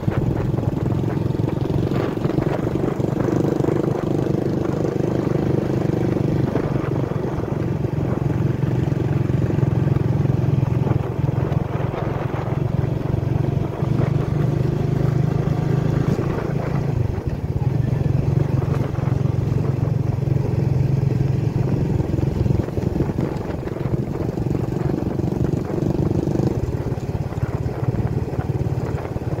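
Motorcycle engine running as the bike rides along, heard from the rider's seat with road and wind noise. The engine note shifts in pitch a few times.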